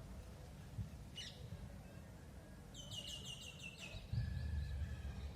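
A bird calling: a short high downward chirp about a second in, then a quick run of about eight high descending notes near the middle, over a steady low rumble that gets louder near the end.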